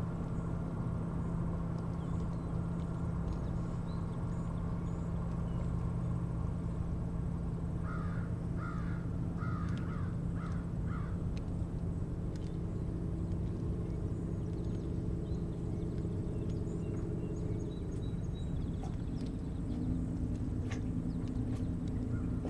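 A steady low hum throughout, with a bird giving about six short harsh calls in quick succession around eight to eleven seconds in. A low motor drone fades in partway through and holds, fitting a distant boat engine.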